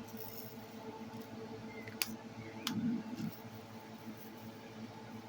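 Diamond-painting drill pen tapping resin drills onto the canvas: two sharp little clicks about two seconds in and a soft thump just after, over a steady hum.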